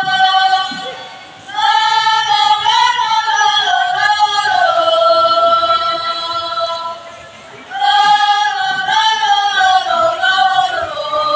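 A group of schoolgirls singing a nasyid in unison, unaccompanied: long held notes that break into ornamented runs, with two short pauses between phrases, about a second in and again past the middle.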